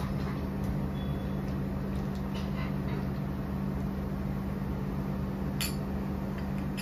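Steady electric hum of an induction cooktop running, with soft scrapes and light clicks of a silicone spatula stirring macaroni in milk in a nonstick pan. A glass bowl clinks once about five and a half seconds in.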